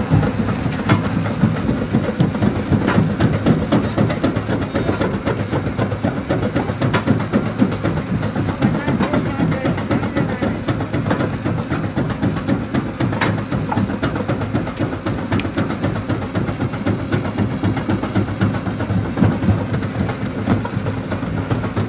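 Jaw stone crusher running under load: a steady machine drone with frequent sharp cracks and clattering of rock being broken between its jaws.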